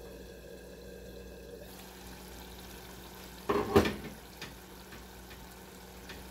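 Thick red stew sauce bubbling in a saucepan on the stove, with a loud clatter a little past halfway as the glass lid is lifted off the pan.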